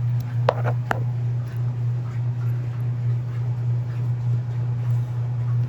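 Electric fan motor humming steadily at a low pitch, with two short squeaky whines about half a second and a second in.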